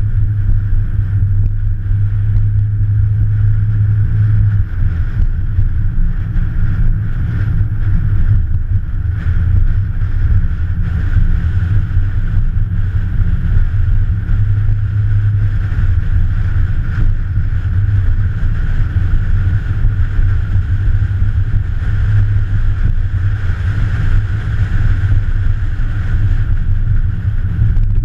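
Steady, loud low rumble of a vehicle running, with no distinct events.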